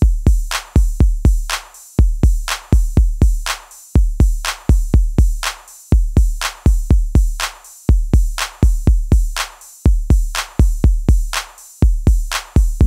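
Background electronic music: a drum-machine beat of deep bass kicks and sharp snare-like hits, repeating in a pattern about every two seconds, with no melody.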